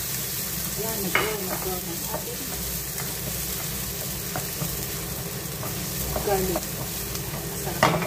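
Chopped garlic sizzling in oil in a nonstick frying pan while a wooden spoon stirs and scrapes it around the pan, with a sharp knock near the end.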